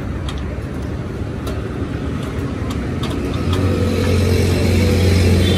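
A motor vehicle engine running steadily, growing louder about three and a half seconds in, with scattered light clicks.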